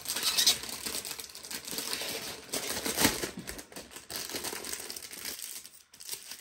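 Clear plastic packaging crinkling and rustling as a rolled diamond-painting canvas in its plastic sleeve is handled. Irregular crackles, dying down about five seconds in.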